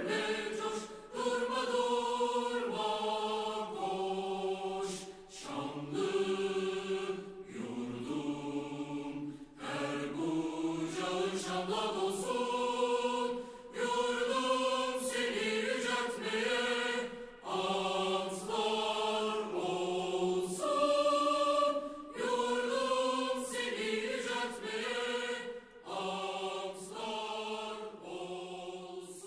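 Choir singing a slow song in long held notes, phrase by phrase, with brief pauses between phrases.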